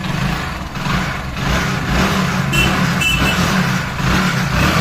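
Hero Splendor Pro motorcycle's single-cylinder four-stroke engine running steadily, its speed rising and falling a little. It is running with the battery disconnected, its spark now coming through the newly repaired spark plug lead.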